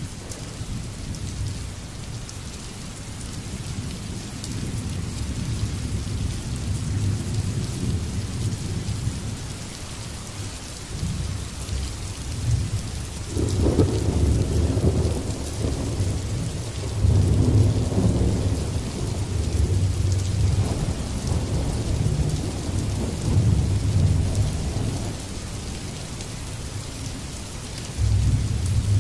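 Steady rain with rolling thunder underneath. The deep rumbles swell and fade, loudest about halfway through and again just before the end.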